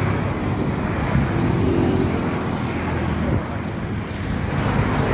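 Steady road traffic noise: motor vehicles running on the road alongside.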